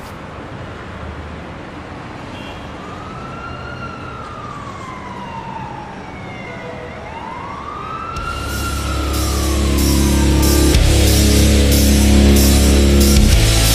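A siren wailing in two slow rise-and-fall sweeps, over a faint steady background. About eight seconds in, loud rock music with drums comes in and takes over.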